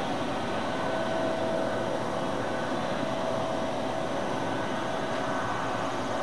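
Boeing 777-300ER's GE90 turbofan engines running at taxi idle: a steady rushing noise with a thin, even whine held over it.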